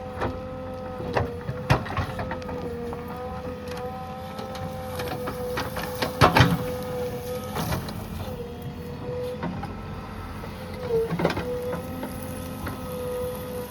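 JCB 3DX backhoe loader working, with a steady high motor whine throughout and scattered knocks and clanks, loudest about six seconds in and again near eleven seconds.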